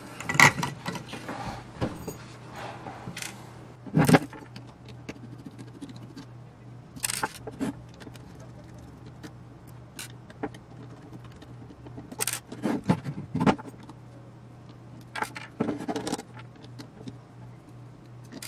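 Scattered metallic clinks and knocks as parts of a metal electronics chassis, screws and a screwdriver are handled and set down on a wooden tabletop, with a screwdriver being worked into the chassis screws near the end. A faint low hum sits steadily underneath.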